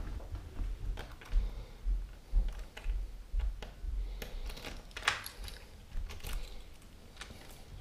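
Footsteps walking on a wooden floor: irregular sharp clicks and knocks, roughly two a second, over dull low thuds of camera handling.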